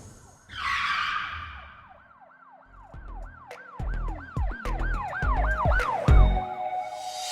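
A whoosh, then a siren sweeping up and down in quick yelps, about three a second, over deep bass hits.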